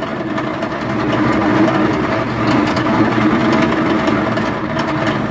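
Honda GX160 single-cylinder four-stroke engine running steadily, driving a Mahkota MCC-4200 grass chopper's rotor with nothing fed into the hopper.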